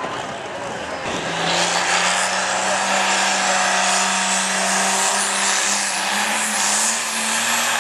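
Heavy super stock pulling tractor engine running flat out under the load of the sled. It gets louder about a second in and then holds a steady, dense note, with a thin high whine rising slowly above it.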